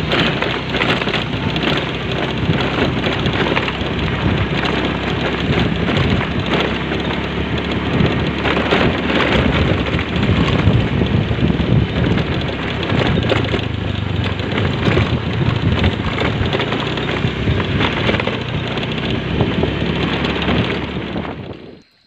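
Loud, steady rushing noise with crackling and rumble, as of wind buffeting the microphone while moving. It cuts off suddenly near the end.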